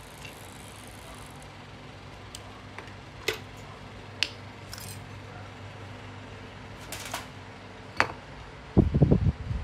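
Small metal hand tools and brass parts being put down and picked up on a workbench: a few separate sharp clicks and clinks, then a quick cluster of louder dull thumps near the end.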